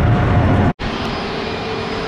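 Boeing 777-300ER's GE90 jet engines climbing away after a go-around: a loud, deep rumble with a steady tone that cuts off abruptly less than a second in. It is followed by quieter, even jet noise with a steady whine from a twin-jet airliner on approach.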